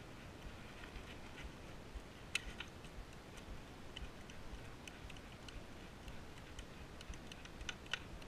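Faint, irregular clicks and light taps as a stainless steel inner cable is handled and pushed through its outer cable, with a slightly sharper click about two seconds in and another near the end.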